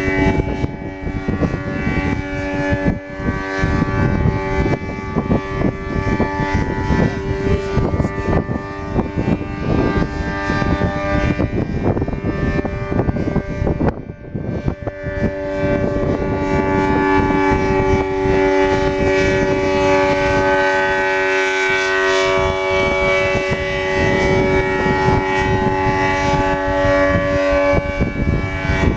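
ACA Allertor 125 outdoor warning siren sounding a steady alert: a held chord of several steady tones, dipping briefly about halfway through before coming back at full strength.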